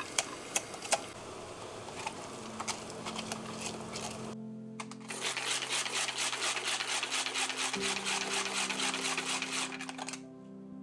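Hand-pulled cord vegetable chopper being pulled over and over, its blades spinning inside the plastic container to mince onion: a dense, rapid rattle of many strokes a second that starts about five seconds in and stops about ten seconds in. Before it there are a few taps and a steady hiss.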